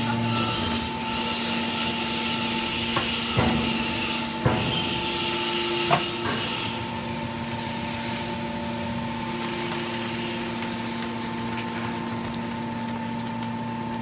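Automatic hydraulic scrap metal baler running: a steady hum from its hydraulic power unit, with a few sharp clanks in the first six seconds and a hiss that stops about seven seconds in. The discharge door slides open and a bale of compressed metal turnings is pushed out.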